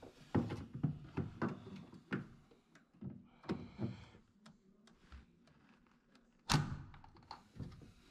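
Scattered clicks and knocks of a deep socket and needle-nose pliers working on the mounting pegs of a front-loading washer's shock absorber, with one louder thunk about six and a half seconds in.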